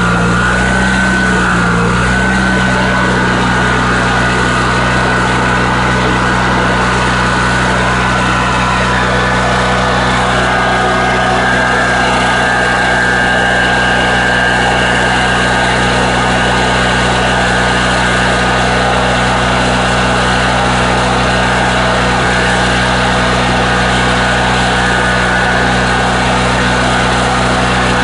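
Coleman Powermate Vantage 8000 portable generator's engine running loud and steady, freshly started after sitting almost a year. Its speed wavers briefly at the start, then settles.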